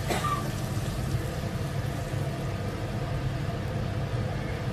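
Steady low hum of a running motor or fan, with a brief knock at the very start.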